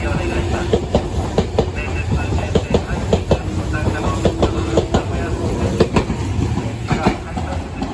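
Meitetsu electric train running, with a steady low rumble and wheels clicking and clattering over the rail joints.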